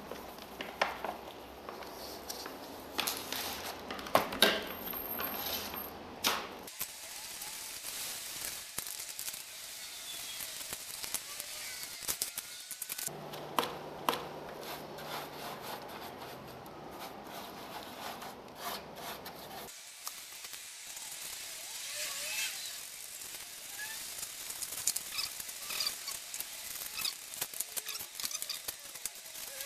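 Hand work with black tile grout: the powder shaken from its bag into a plastic bowl, stirred, then dabbed and scraped onto a cement-coated styrofoam rock background with a paintbrush. The sound is an irregular run of scrapes, rubbing and small knocks, loudest in the first few seconds.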